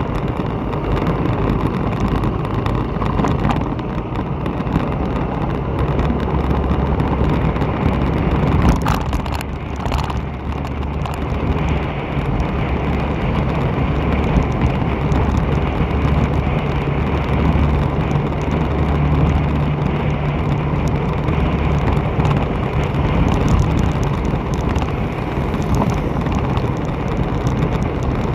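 A vehicle travelling along a street, with a steady low engine hum under road and wind noise on the microphone; a brief hiss swells and fades about nine seconds in.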